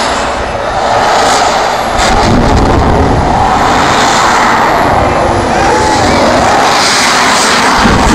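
Loud, steady engine noise from vehicles running on the speedway floor, with no breaks.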